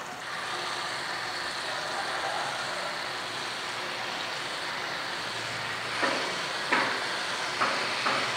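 Yogurt-marinated chicken pieces sizzling steadily in hot oil in a frying pan, with a few sharp taps and spits from about six seconds in as more pieces are set down with tongs.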